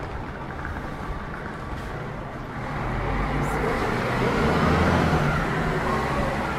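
A road vehicle drives past close by, its engine and tyre noise swelling from about a third of the way in, loudest just past the middle, then fading, over steady street traffic.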